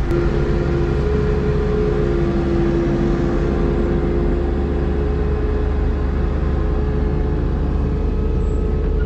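Diesel engine of heavy equipment running steadily: a low rumble with a steady two-note whine on top.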